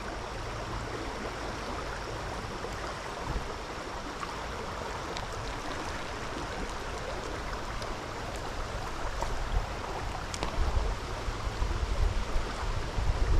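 Fast-flowing stream water rushing steadily, with low rumbling gusts near the end.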